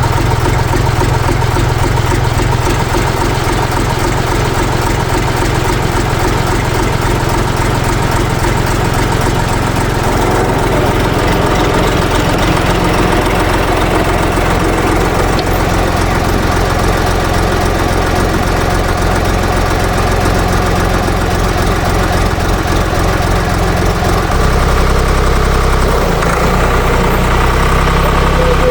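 Air-cooled three-cylinder Deutz diesel of a Ditch Witch 5010 running steadily just after being started. Its note changes about ten seconds in and again near the end.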